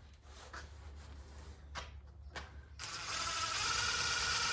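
Cordless drill-driver running, driving a small screw into the screen's track frame; it starts about three seconds in, after a few light clicks of handling.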